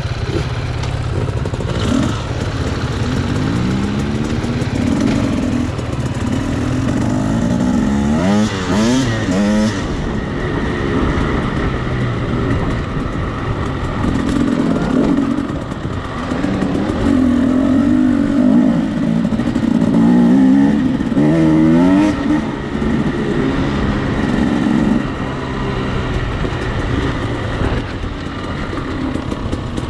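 Husqvarna enduro dirt bike engine being ridden, its pitch rising and falling again and again as the throttle is opened and closed and the bike changes gear.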